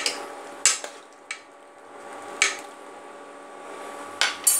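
Metal spoon knocking against an open pressure cooker pot while the dalma is stirred: about six sharp clinks at irregular intervals, two close together near the end, over a faint steady hum.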